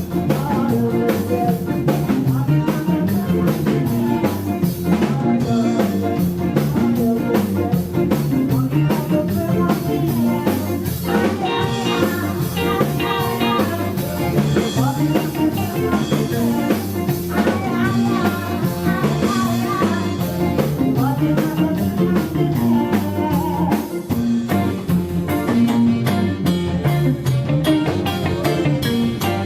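A band playing an upbeat song with drum kit and guitar on a steady beat, with a singer's voice at times.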